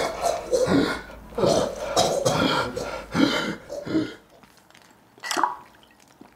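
A man's throat making a rapid series of loud belching, gagging sounds, without words, for about four seconds, then falling quiet. A single short sound falling in pitch comes about five seconds in.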